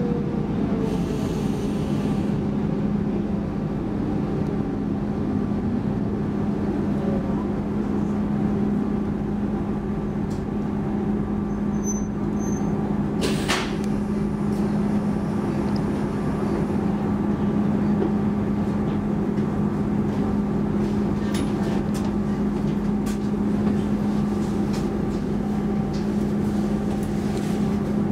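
Cabin sound of a Stockholm X10 electric commuter train: the motor whine falls away in the first couple of seconds as the train slows to a stop, then a steady low electrical hum while it stands at the platform. One sharp click sounds about halfway through.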